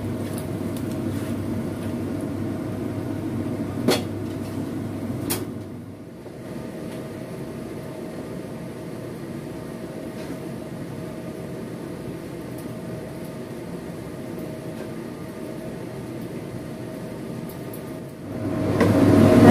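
Spatula knocking sharply on a non-stick wok twice, about four and five seconds in, over a steady low kitchen hum. The hum drops about six seconds in, and a louder rushing noise swells in near the end.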